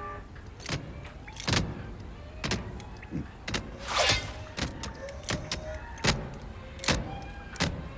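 Cartoon robot mechanical sound effects: a string of sharp metallic clicks and clanks, about one every second, with short whirring tones between them.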